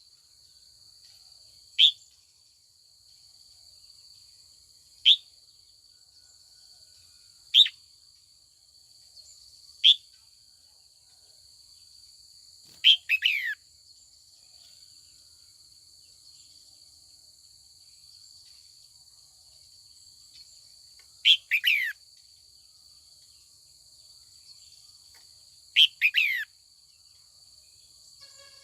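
Female red-whiskered bulbul calling: four short, sharp falling notes a few seconds apart, then three longer multi-note calls, about a second in length, spaced several seconds apart. A steady high insect drone runs underneath.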